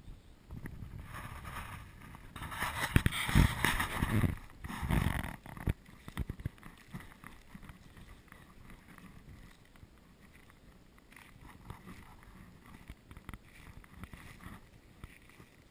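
Rumbling noise on the camera's microphone for about five seconds starting about a second in, then quiet outdoor ambience with faint scattered crackles.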